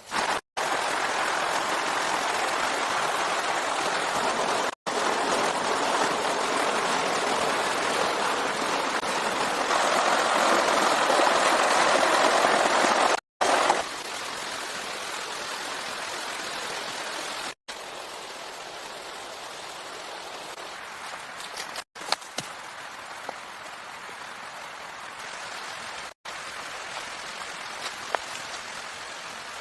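Steady noise of water, such as a stream or rain, in several short clips joined by abrupt cuts about every four seconds. It is loudest about ten to thirteen seconds in, and quieter in the later clips.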